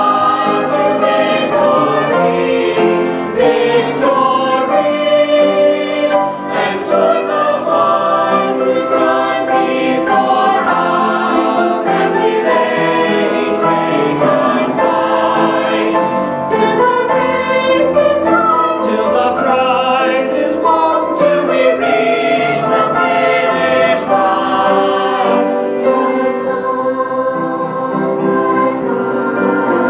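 Mixed choir of teenage boys and girls singing a hymn in several voice parts.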